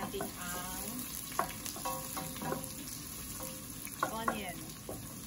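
Sliced onions sizzling in hot oil in a stainless steel pot while being stirred with a wooden spoon. The spoon knocks against the pot a few times, about a second and a half in and twice near the four-second mark.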